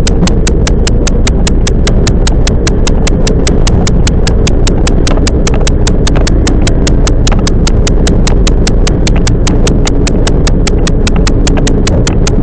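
Toyama Chiho Railway 10030-series electric train running, heard from inside: a steady low rumble with a rapid, perfectly even ticking about six times a second.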